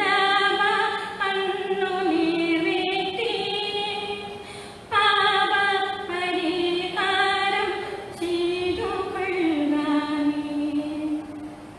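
A woman singing a slow hymn melody, holding long, steady notes in phrases a few seconds long.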